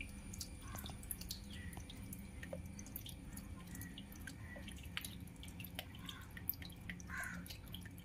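Water running down a wall-mounted waterfall's textured polycarbonate sheet, heard as many small, irregular drips and trickles over a faint low hum.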